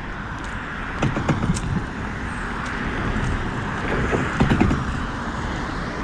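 Steady outdoor rumble of wind and traffic noise, with a few crunching steps on track gravel about a second in and again around four seconds in.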